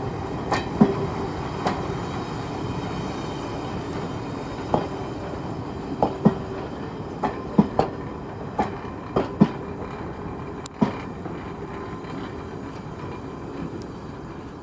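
Train running on a heritage railway: a steady rumble with the wheels knocking sharply over rail joints about a dozen times at uneven intervals, growing a little quieter near the end.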